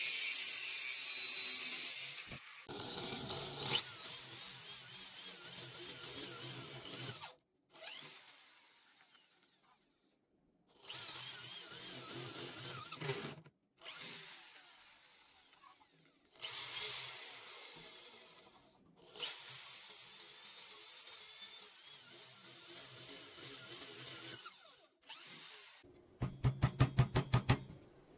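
An angle grinder cutting galvanized steel square tube for the first two seconds, then a corded electric drill boring holes in the tube in several separate bursts, its motor whine rising as it spins up and falling as it slows. Near the end comes a quick run of about a dozen sharp knocks.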